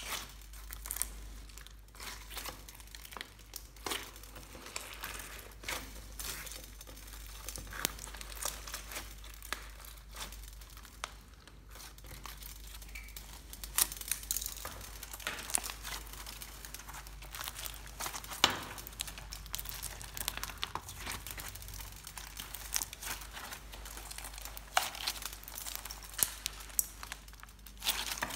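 Clear slime loaded with beads, sequins and foam balls being kneaded and squeezed by hand. It gives a constant run of sticky clicks and crackles at irregular intervals as it is pressed and pulled.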